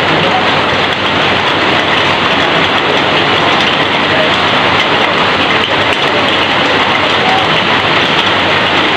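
Heavy rain falling steadily, with water streaming off the edge of a corrugated roof, making a loud, even hiss.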